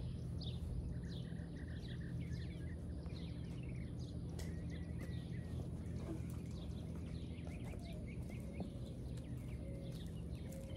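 Birds chirping: many short, quick calls that sweep downward, repeated throughout, over a steady low hum.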